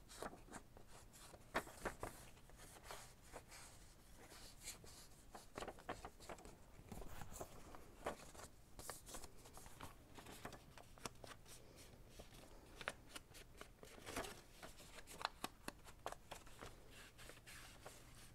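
Faint, irregular scuffing and soft taps of a foam ink-blending tool rubbed and dabbed along the edges of a paper envelope, with the paper shifting and rustling as it is handled.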